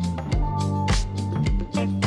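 Background music with a steady drum beat of about two beats a second over a bass line.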